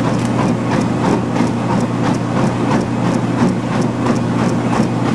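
Treadmill belt and motor running at a fast running speed with a steady hum, and a runner's footfalls landing on the belt about three times a second.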